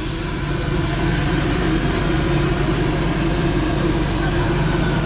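A special-effects jet blasting a tall white plume of vapour: a loud, steady rushing noise with a low machine hum, swelling over the first second and then holding.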